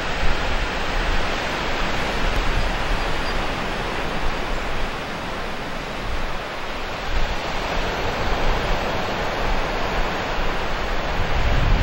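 Steady wash of ocean surf, with a low rumble that grows near the end.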